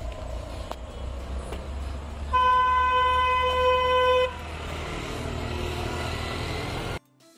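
A vehicle horn sounds once, a single steady tone held for about two seconds, over a low steady outdoor rumble. The sound cuts off abruptly near the end.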